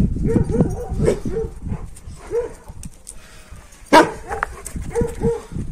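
Kangal shepherd dogs barking in a quick run of deep barks, then more barks spaced out; they are alarm-barking at a strange dog that has come near. A single sharp knock about four seconds in is the loudest sound.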